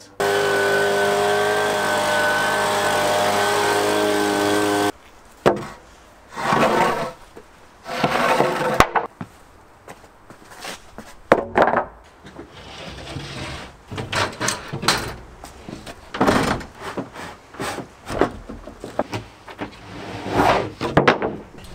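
A short music sting of about five seconds, with sustained chords, that cuts off abruptly. After it, wooden boards and a large thin plywood sheet are handled on paving: irregular scrapes, knocks and footsteps.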